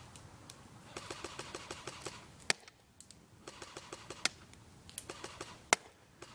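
Cyma RPK airsoft electric gun firing short full-auto bursts at a slow rate of about ten shots a second, with several single sharp clicks in between. The battery is nearly flat.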